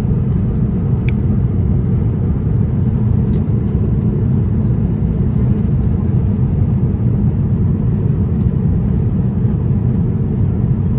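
Steady low rumble of cabin noise inside an Airbus A350 airliner, even and unbroken, with a faint click about a second in.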